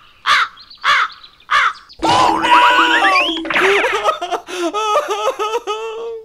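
Three short crow caws as a cartoon sound effect, spaced about half a second apart, followed by a few seconds of wavering, melodic cartoon music.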